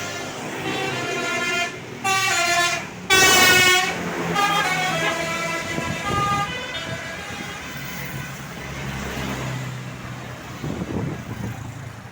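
Tour bus's 'telolet' multi-tone horn playing a quick melody of stepping notes, loudest a few seconds in, with the bus's engine running underneath as it passes.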